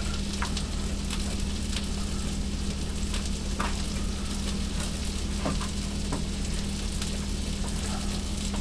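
Hamburger patties frying in a cast iron skillet: a steady sizzle with scattered sharp pops of spitting fat, over a low steady hum.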